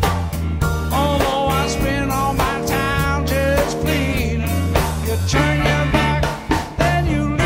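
Rock band rehearsing: Hammond organ, bass guitar and drum kit playing together, with a gliding lead melody line over a steady beat.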